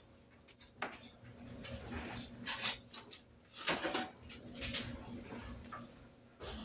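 Light, scattered kitchen clatter: a handful of short knocks and clinks, a second or so apart.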